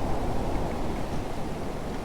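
Blizzard wind blowing in a low, rushing noise that eases a little toward the end.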